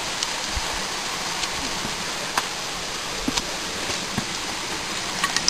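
Steady rush of running water, with a few faint scattered clicks and snaps.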